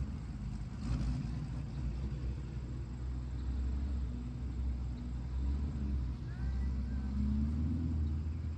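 Chevrolet Camaro ZL1 being driven, its supercharged V8 running steadily with a deep, low drone.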